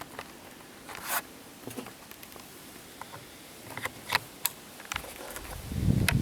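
Short scraping and rustling strokes, scattered at first and growing more frequent and louder near the end, where a low rumble comes in.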